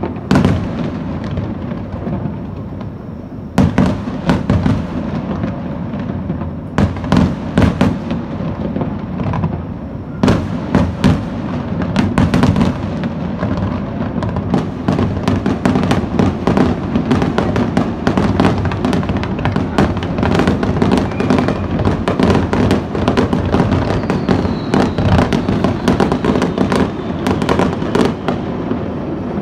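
Fireworks display: aerial shells bursting one after another, sharp bangs over continuous crackling, thickening into a near-continuous barrage from about ten seconds in.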